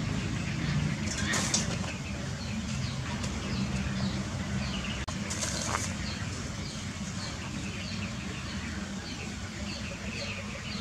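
Short high chirps repeating two or three times a second over a steady low hum.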